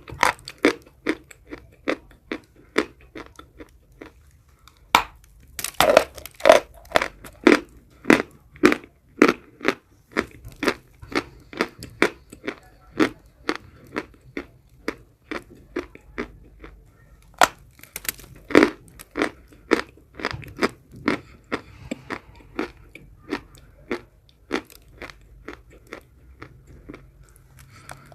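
A person biting and chewing pieces of eating chalk close to the microphone: a run of sharp, dry crunches, about two a second, with louder bites around six seconds in and again near twenty seconds.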